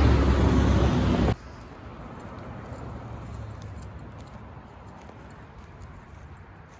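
Loud rumble of a passing train, cut off abruptly about a second in. After that only a quiet outdoor background with faint light ticks remains.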